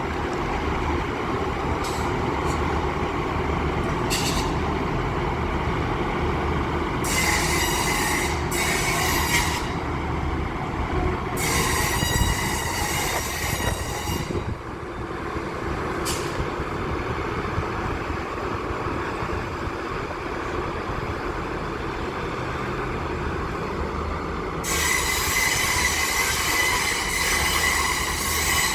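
Train moving through a station, its steel wheels squealing against the rails in spells: about seven seconds in, again around twelve seconds, and continuously from about twenty-five seconds on, over a steady low rumble of the train.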